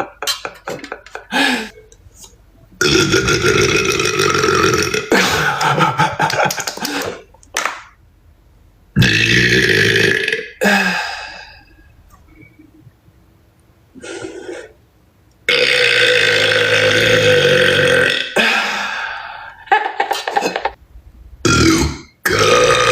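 A woman letting out a string of long, loud, deliberate burps from swallowed air, one after another with short pauses, the longest lasting two to three seconds.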